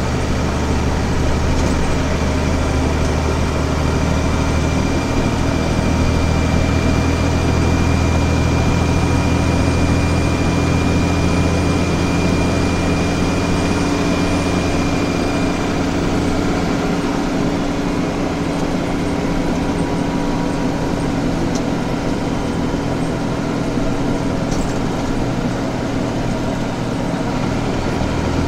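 Scania DSC9 straight-six diesel engine of a 2001 Scania OmniCity articulated city bus running, with a thin steady high squeal from the engine over the first half. About halfway through the squeal stops and the low engine note drops away.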